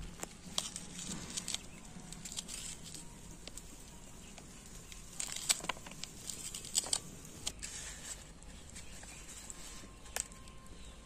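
Small knife slicing onions on a pressed-leaf plate: irregular soft taps and clicks as the blade cuts through and meets the plate.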